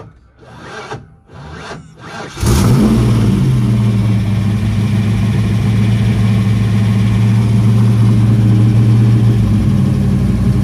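Ford small-block V8 with a new Trick Flow cam and heads being cranked over by the starter in even pulses, then catching about two and a half seconds in and running steadily and loud.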